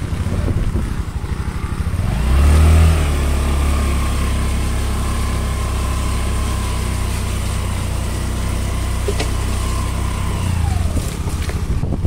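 Motor scooter engine under throttle on a muddy dirt track: it picks up about two seconds in, runs steadily with a whine over the low drone, then eases off near the end.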